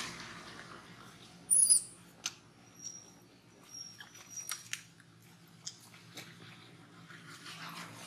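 Baby capuchin monkey giving one short, high-pitched squeak about a second and a half in, followed by scattered small clicks and taps.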